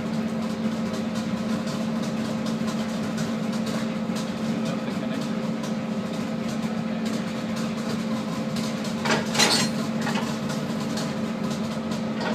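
A vehicle's steady motor hum with frequent light metallic rattles and clicks, heard while riding on board; a louder clatter about nine seconds in.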